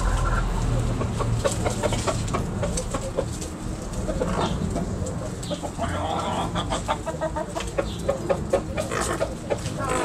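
A backyard flock of chickens clucking, with many short clucks scattered through and a longer run of calling about six seconds in.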